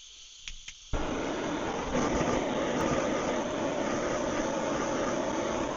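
Handheld gas torch: two light clicks, then the flame catches about a second in with a sudden, steady hiss. It is being played over a freshly poured clear coat to pop the bubbles in it.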